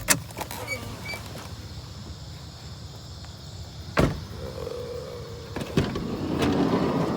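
Sharp knocks and clatter with a short squeaking scrape, then a swelling rattle near the end: objects being handled and moved.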